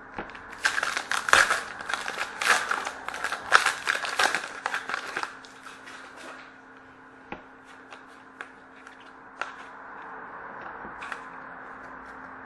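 A hockey card pack's wrapper crinkling and being torn open for about five seconds, followed by a few light clicks of cards being handled.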